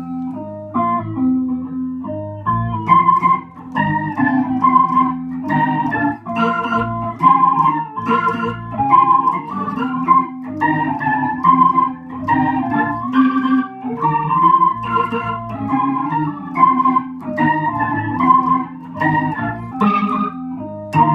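Electric guitar played through a Boss SY-300 guitar synthesizer set to a Hammond B3 organ patch, so it sounds like an organ: chords and melody notes in a steady rhythm, changing about twice a second.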